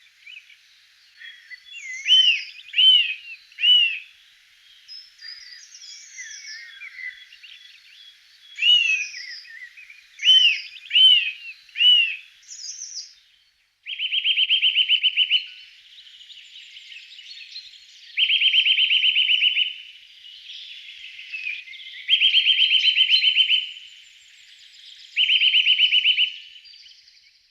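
Songbirds singing: first repeated slurred whistled notes, often in groups of three, over faint twittering, then, from about halfway, four loud rapid trills, each about a second and a half long.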